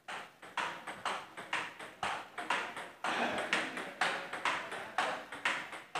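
Table tennis rally: the ball clicking off the players' pimpled-rubber bats and the table in quick alternation, about four hits a second without a break.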